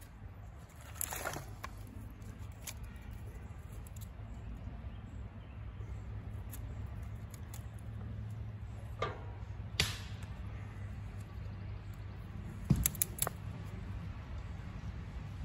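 Thin split kindling sticks knocking and snapping as they are handled and stood up in a fire ring: a few sharp wooden clicks, in small groups about a second in, around nine to ten seconds in and near the end, over a steady low background rumble.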